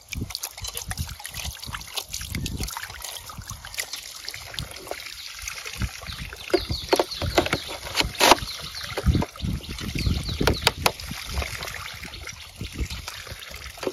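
Hands splashing and sloshing shallow water over plastic toy guns, in irregular splashes with short sharp clicks and knocks between them.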